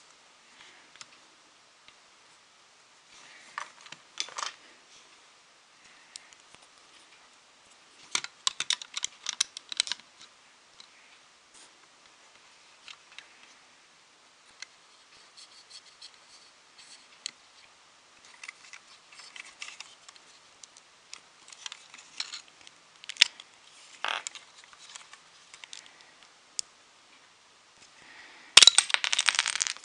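A small plastic LEGO car handled and turned in the fingers close to the microphone: scattered clicks, taps and rustles of plastic bricks and fingers, with a denser, louder patch of rustling and clicking near the end.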